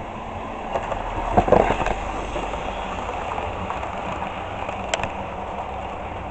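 Model railway train running past close by: steady rolling noise of small wheels on track, swelling briefly about a second and a half in.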